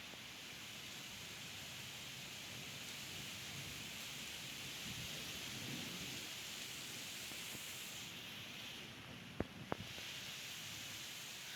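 Steady rain hiss with a low rumble of distant thunder swelling in the middle. Two sharp ticks sound near the end.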